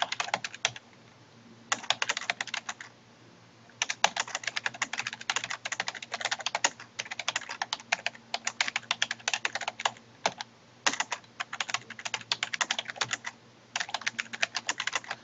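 Typing on a computer keyboard: quick runs of keystroke clicks, broken by short pauses, the longest near the start.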